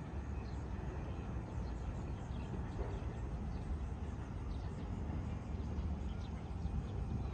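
Outdoor city-park ambience: a steady low rumble with faint, scattered high bird chirps.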